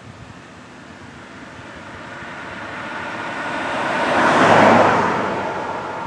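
A car passing by on the road. The tyre and engine noise swells to its loudest about four and a half seconds in, then fades.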